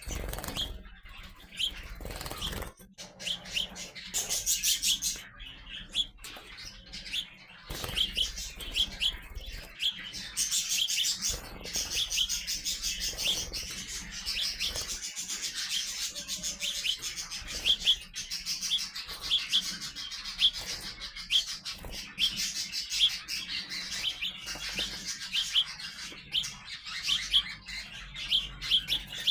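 Young sparrows chirping continually: a steady run of short high chirps, several a second, with stretches of a higher hissing sound over them.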